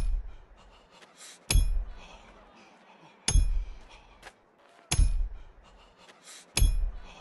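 Steel hammer striking a nail, each blow a sharp clink with a short metallic ring and a dull thud underneath. Five evenly spaced blows, about one and a half seconds apart.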